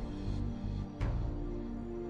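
Background music: sustained low notes with a single drum hit about a second in.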